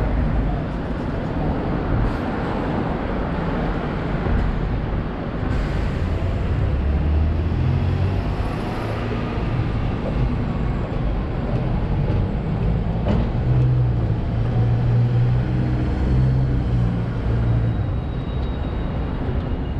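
Busy city street traffic, with the steady low drone of vehicle engines swelling up twice as they run close by. Wind buffets the microphone.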